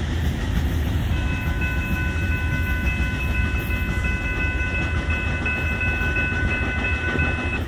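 Low rumble of a heavy, rock-loaded Florida East Coast Railway freight train rolling past and away from the crossing. A steady high ringing tone comes in about a second in and holds until just before the end.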